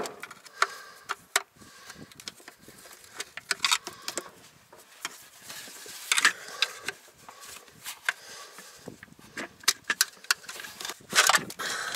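Screwdriver working the hold-down latches of a GM HEI distributor cap to free it: scattered small clicks and scrapes of the metal tool against the plastic cap and engine parts.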